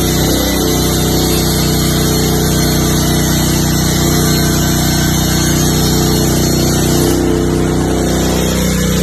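Diesel engine of a combined generator and welding machine running steadily at constant speed.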